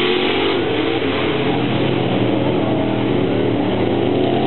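Off-road pickup truck's engine revving hard as it races across a dirt track, its pitch rising and falling with the throttle.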